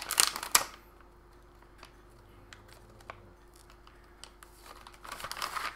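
Soft plastic pack of Windex wipes crinkling as it is handled and its resealable flap peeled open, loudest in the first half-second. After a few faint ticks, the packaging rustles again near the end as a wipe is pulled out.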